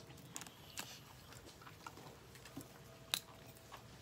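Faint chewing and crunching of a snack close to the microphone, a scatter of soft clicks with one sharper click about three seconds in.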